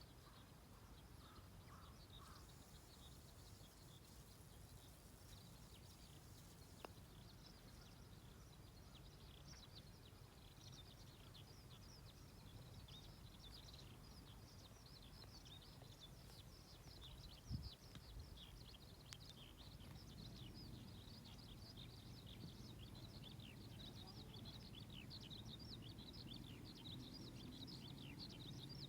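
Faint outdoor bird chirping, many short high chirps that grow busier after the first several seconds, over a low rumble, with one soft thump partway through.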